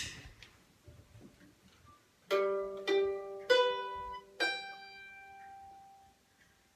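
A sharp click at the start, then four plucked notes on a stringed instrument, one after another, each ringing out and fading: the starting pitch sounded for the singers before they begin.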